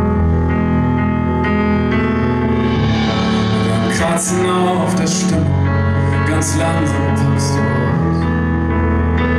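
Live band music: keyboard chords held over a steady bass, with several bright, splashy hits about halfway through.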